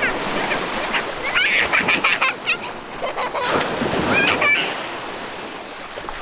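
Sea surf washing continuously on the shore, with a few short high-pitched calls over it.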